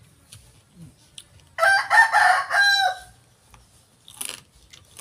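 A rooster crowing once, about a second and a half long, starting a little over a second and a half in.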